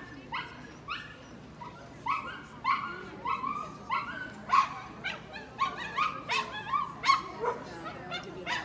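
A dog barking in a long string of short, high yips, about two to three a second, coming faster after the first couple of seconds.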